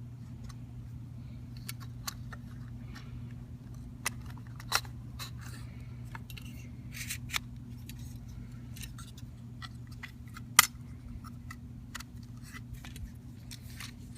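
Small clicks and taps of a hinge pin and sleeve being worked through a Volvo S40 exterior door handle, with one sharper click about ten and a half seconds in. A steady low hum runs underneath.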